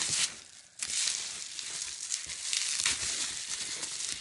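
Bubble wrap crinkling and rustling as it is handled and pulled away from the items being unpacked, stopping briefly just under a second in and then going on.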